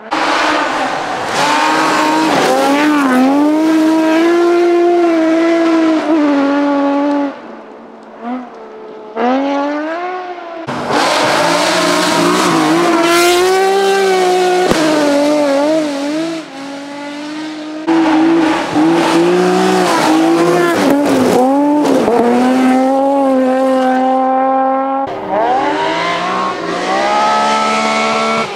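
BMW rally car engines driven hard, revving up and dropping back through gear changes as the cars pass, in several separate passes with abrupt cuts between them. There is some tyre noise on the loose surface, with a short lull partway through the first pass.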